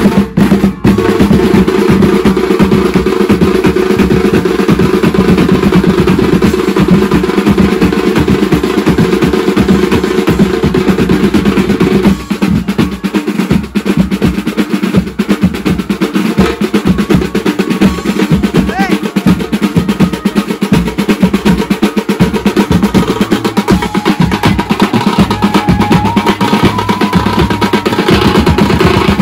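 Loud, fast drumming from an Indian procession band, with rapid snare-style rolls over a steady held tone that drops away about twelve seconds in. A higher held note joins the drums near the end.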